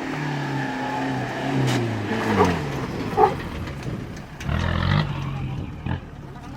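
Off-road 4x4's engine running under load, its revs dropping about two seconds in and picking up again near the end, with a few sharp knocks.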